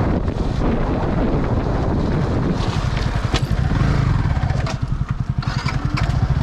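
Wind rushing over the microphone of a moving Yamaha R15 as it slows. About four seconds in this gives way to the bike's single-cylinder engine running at low revs with an even pulse, with a few sharp clicks.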